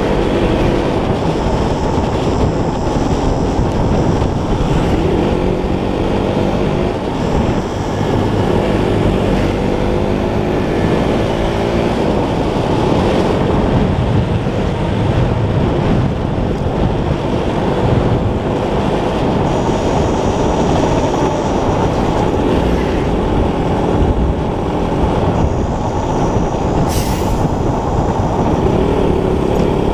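Motorcycle riding along at road speed: wind rushing over the bike-mounted microphone with the engine running underneath, its pitch sliding up and down with the throttle. A brief sharp high sound cuts through once near the end.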